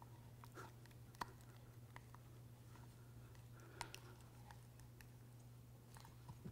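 Near silence with a steady low hum and a few faint, sharp clicks and ticks from hands handling the metal cup and rubber boot of a ball-and-trunnion universal joint. The clearest click comes about a second in, with others near four seconds and near the end.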